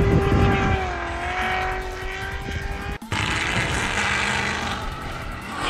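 Drift cars' engines held at high revs through a slide, with tyre squeal. The sound drops out for an instant about three seconds in and comes back rougher and noisier as two cars drift in tandem.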